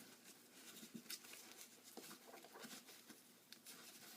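Faint scattered scratching and small ticks of a goalie leg pad being handled while its leg channel is worked open.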